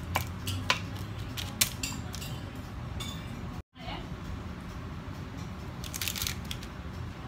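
A metal spoon clicks and scrapes against a parchment-lined baking tray as sliced fennel is spread out, with a few sharp clinks. Near the end, a fish fillet is laid on the parchment with a brief crinkle of paper.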